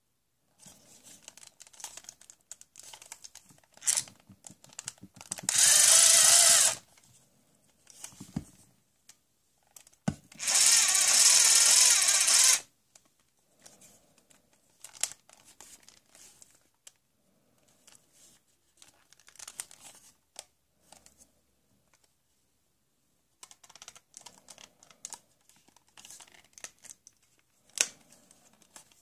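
Toy power screwdriver whirring twice, for about a second and then for about two seconds, with small plastic clicks and rattles from handling around and between the runs.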